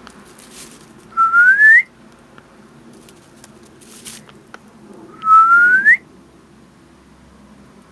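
Two short rising whistles from a person, about four seconds apart, each sliding up in pitch. Between them, faint crunching of the Holland Lop rabbit chewing hay.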